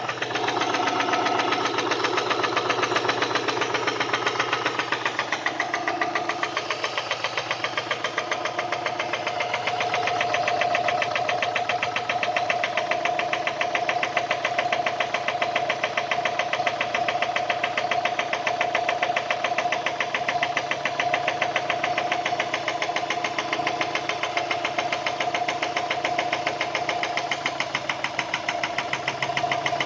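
Subaru EJ204 flat-four engine running with a rapid, regular knock: a rod knock from the connecting-rod bearing of cylinder 1, which had spun. The engine speed shifts over the first few seconds, then holds steady.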